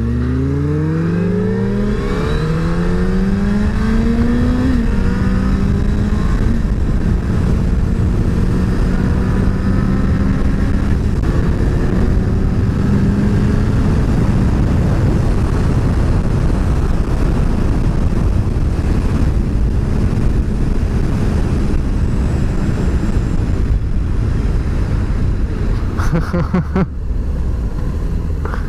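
Sport motorcycle engine accelerating hard through the gears: its pitch climbs and drops back at each upshift in the first five seconds or so, then holds a steady cruise under a thick rush of wind noise. A few sharp clicks come near the end.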